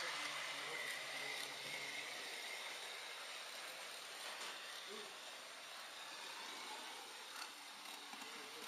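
An H0 model train running along the layout's track: a steady hiss with a few faint, irregular clicks from the wheels on the rails.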